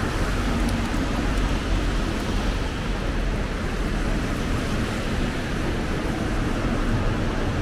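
Steady city street traffic noise on rain-wet roads: a constant wash of tyres and engines with a low rumble, no single vehicle standing out.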